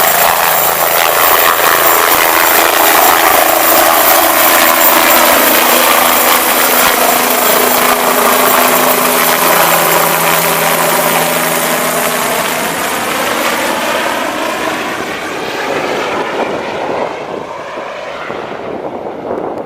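Medical helicopter flying off: loud rotor and turbine noise with a sweeping, phasing quality, fading and growing duller over the last few seconds as it moves away.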